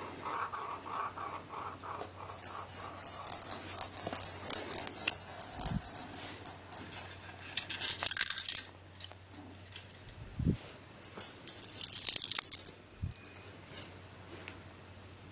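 Steel ball bearings rattling and rolling inside plastic Intellect Ball maze puzzles as they are handled, in several spells of rattling with a few soft knocks between them.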